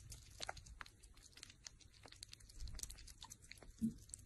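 Sugar gliders licking and eating from a small cup: faint, irregular wet clicks of lapping and chewing, with one brief low sound a little before the end as the loudest moment.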